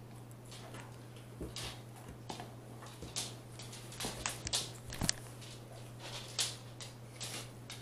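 Soft rustling and light clicks, scattered a few a second, over a steady low hum.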